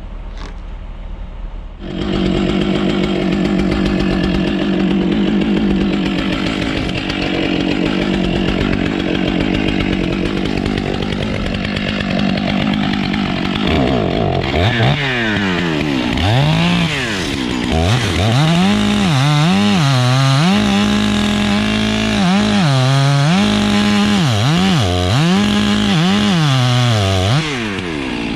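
Two-stroke chainsaw cutting wood. It comes up to full speed about two seconds in and holds a steady high pitch, then through the second half its engine speed repeatedly dips and recovers as it works in the cut.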